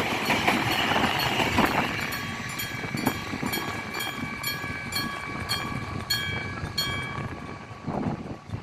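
Electric level-crossing bell (denshō type) striking about twice a second. A passing train runs loudest over the first two seconds and then dies away, leaving the ringing tones clear. The bell stops about seven seconds in, the sign that the crossing warning has ended once the train has cleared.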